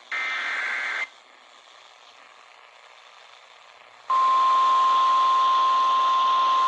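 The last of the EAS SAME header data bursts: about a second of rapidly alternating digital data tones. After about three seconds of faint hiss, the steady single-pitch 1050 Hz NOAA Weather Radio alarm tone starts about four seconds in and holds, the signal that a tornado warning follows.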